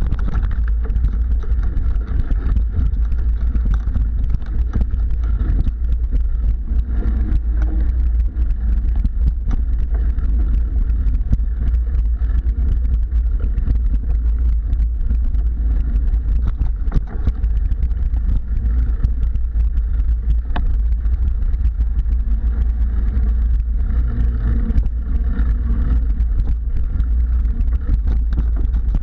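Mountain bike riding over a bumpy dirt singletrack, heard from a handlebar-mounted microphone: a steady low wind rumble on the microphone with constant irregular rattles and knocks from the bike jolting over the trail.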